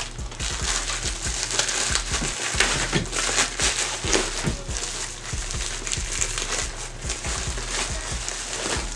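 A shipping package being torn open by hand, with irregular crinkling, tearing and crackling of the packaging.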